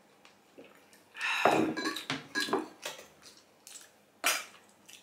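Tableware clattering during a meal: a ceramic soup bowl set down on a wooden table and a spoon clinking against a steel plate. The loudest clatter comes a little over a second in, followed by a few light clicks and one sharp clink about four seconds in.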